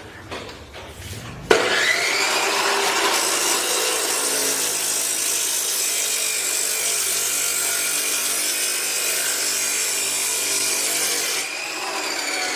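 Nikawa NK-BGS2500 abrasive metal cut-off saw switched on about a second and a half in, its motor whine rising quickly. The wheel then grinds loudly and steadily through steel for about ten seconds. Near the end the grinding eases and the motor's pitch starts to fall.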